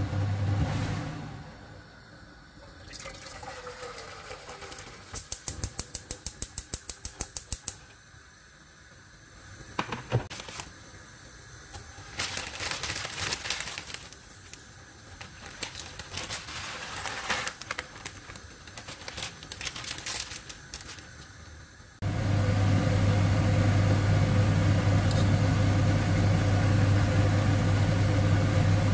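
Cooking at a stainless steel stockpot on a gas hob: a quick even run of clicks about five seconds in, then scattered clatter and water splashes as egg noodles go into the water. About two-thirds of the way through a loud, steady rumble and hiss of a pot at a rolling boil sets in suddenly and holds.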